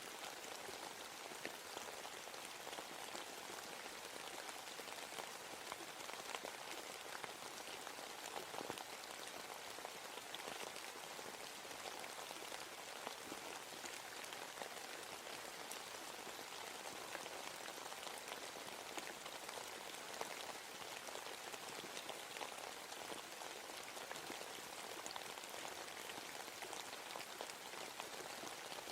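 Steady rain falling in a forest, a dense patter of many small drop impacts.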